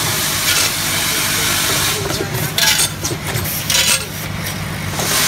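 Vertical form-fill-seal screw packing machine running: a steady low hum under constant noise, with short bursts of hiss coming unevenly about once a second.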